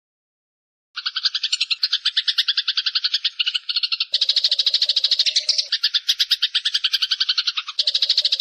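Eurasian tree sparrow's long rapid chatter, a fast unbroken run of harsh notes at about a dozen a second, starting after a second of silence.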